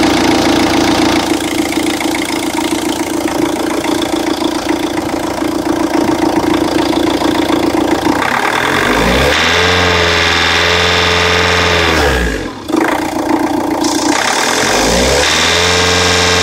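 Opel Astra G 1.7 DTI 16V diesel engine running with a strong steady hum for about eight seconds, then revved up and held, dropping and picking up again twice. The odd noise comes from an unplugged connector on the diesel injection pump, according to the owner.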